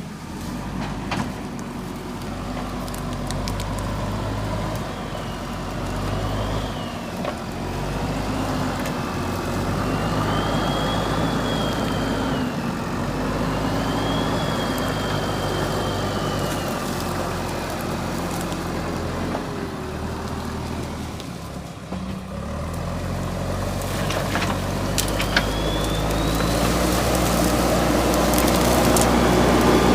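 JCB 3DX backhoe loader's diesel engine running under working load, with a high whine that rises and falls. The engine drops briefly about two-thirds through, then picks up again and grows louder.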